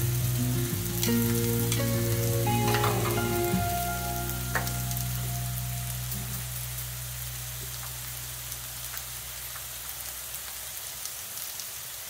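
Diced chicken and sausage links sizzling on a Blackstone flat-top griddle, a steady hiss with small pops and crackles. Background music plays over the sizzle in the first half and fades out about halfway through.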